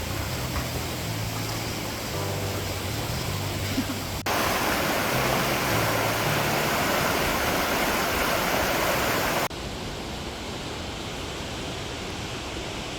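Steady rush of a waterfall. It jumps louder about four seconds in and drops back abruptly about five seconds later, at cuts between clips.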